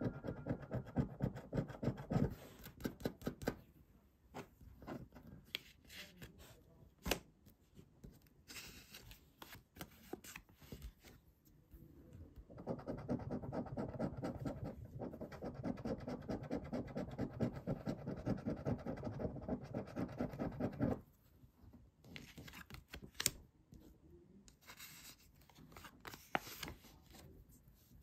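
A coin scratching the coating off an Illiko Banco scratch-off lottery card: rapid back-and-forth strokes in bursts with short pauses, and a long steady run about halfway through that stops abruptly.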